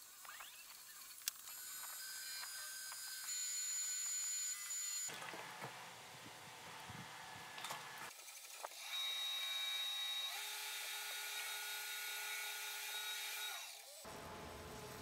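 Wood lathe running with the bowl spinning, as friction wax is rubbed onto the turning wood: a steady high whine made of several tones that shifts abruptly a few times. There is a single sharp click about a second in.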